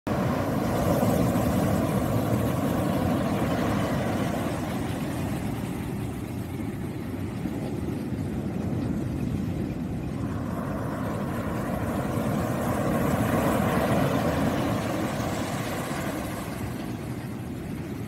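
Ocean surf breaking on a sandy beach: a continuous rush of water that swells about a second in and again from around ten seconds.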